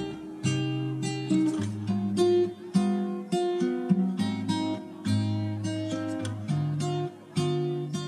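Background music on acoustic guitar: a run of picked notes over held low notes.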